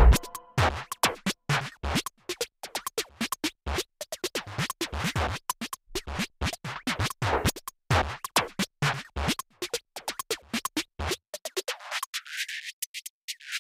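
Background electronic music in a sparse, choppy break of short sharp clicks and scratch-like stabs. Near the end the lower sounds drop away briefly.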